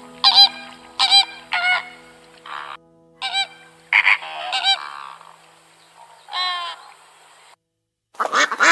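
Greater flamingos honking: about eight separate calls spread unevenly over seven seconds. Near the end, after a brief break, a fast run of calls from domestic geese begins.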